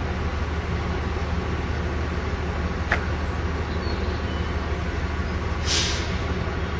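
HST (Class 43) power car's diesel engine idling at a standstill: a steady low drone. A sharp click comes about three seconds in, and a short hiss near the end.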